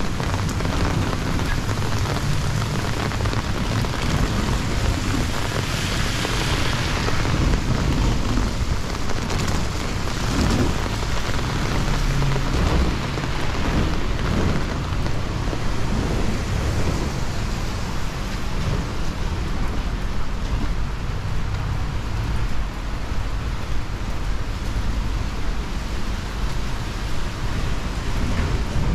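Steady noise with no distinct events: a strong low rumble with a hiss over it.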